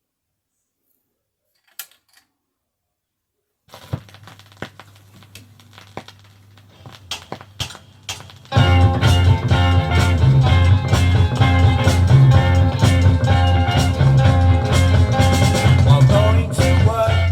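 A 1966 vinyl single playing: near silence broken by a single click about two seconds in, then faint crackle and clicks over a steady low hum from about four seconds, before guitar-led 1960s rock music starts loudly about eight and a half seconds in.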